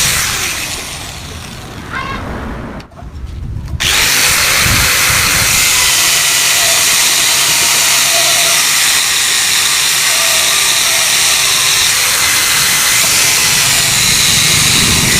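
A power tool working on a Yamaha RX-King exhaust's metal, a dense steady whine and grind. It fades and almost stops about three seconds in, then cuts back in sharply and runs steadily.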